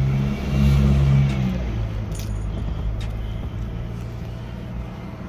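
Low, steady rumble of a motor vehicle's engine, louder for the first second or so and then slowly fading. A few light clicks, like a plastic fork knocking against a cardboard food box, sound about two and three seconds in.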